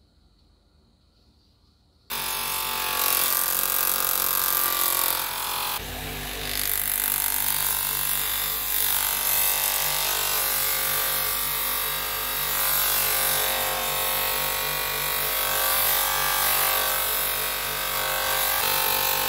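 Near silence, then about two seconds in an electric power tool switches on and runs steadily. Its sound shifts a few seconds later, lower and fuller, and then holds steady.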